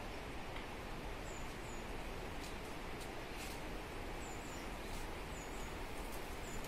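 Small birds giving short high chirps every second or so over a steady rushing background noise, with a few faint clicks.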